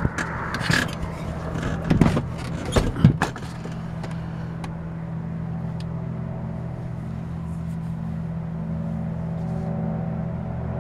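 Several knocks and bumps, then a steady low industrial hum of evenly spaced deep tones. The recordist takes it for a constant hum given off by the Alcoa aluminium smelter plant.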